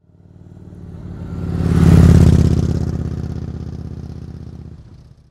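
Motorcycle engine sound effect, swelling to its loudest about two seconds in and then fading away, like a bike passing by.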